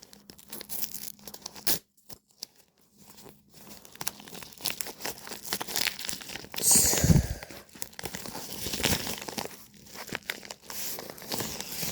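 Packing tape being peeled and torn off a small package, with the wrapping crinkling and rustling in irregular bursts; the loudest rip comes a little past halfway.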